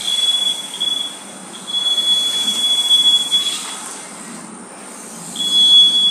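Piezo max-speed buzzer on a home-built Arduino self-balancing scooter sounding a steady high-pitched tone in three stretches, off briefly about a second in and again for a couple of seconds in the middle: the signal that the scooter has reached its set top speed.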